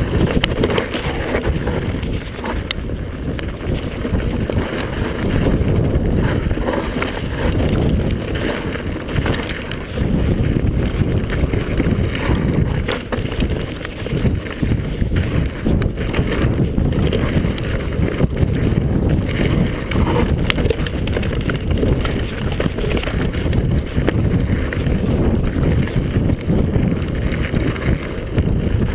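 Wind buffeting the camera microphone as an enduro mountain bike descends a dirt forest trail at speed, with the tyres on dirt and repeated knocks and rattles from the bike over bumps.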